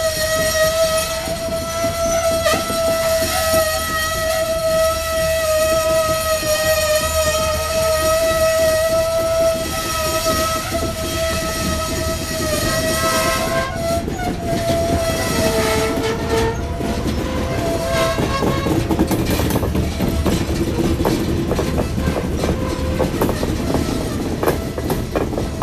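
Ithaca Central Railroad diesel locomotive's air horn blowing one long, steady blast of about thirteen seconds, then a few short toots. After that the train rumbles past, with wheels clacking over the rail joints.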